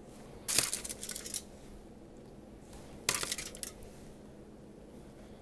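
Metal spoon scraping and clinking against ceramic dishware in two short bursts, about half a second in and again about three seconds in, as roasted cauliflower is spooned onto a plate.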